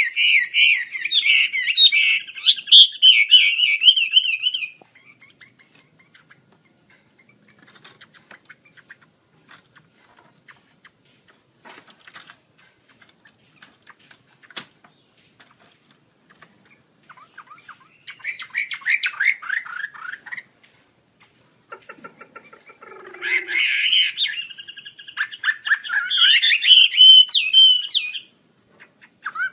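Chinese hwamei singing in spells of rapid, warbling phrases: a burst of about five seconds at the start, a short phrase a little past the middle, and a longer, varied run near the end, with quiet pauses between.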